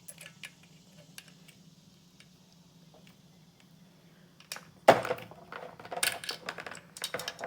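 Chainsaw bar and chain being handled and fitted onto the saw: a few light metal clicks, then a sharp knock about five seconds in and a run of rattling clicks and clinks.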